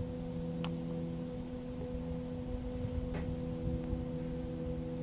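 A steady machine hum at a few fixed pitches over a low rumble, with two brief faint chirps, one about half a second in and one about three seconds in.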